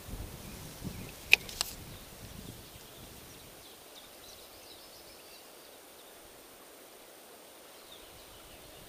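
Rustling and handling of an ultralight spinning rod and reel during a cast, with two sharp clicks about a second and a half in, then quiet outdoor ambience with faint bird chirps.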